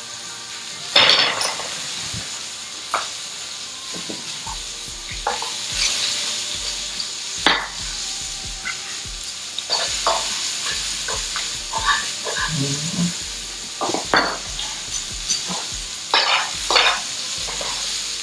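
Salmon and sliced vegetables sizzling steadily in frying pans, with irregular clacks and scrapes of metal tongs against the pans as the food is turned.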